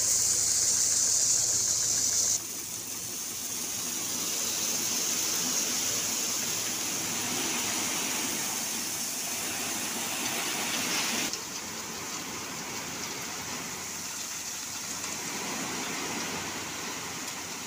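Crushed stone (gitti) pouring and sliding out of a tipping tractor trolley: a steady rushing hiss, with the Mahindra 475 DI tractor's engine running underneath. The rush is loudest for the first two seconds, then drops abruptly, and drops again about eleven seconds in.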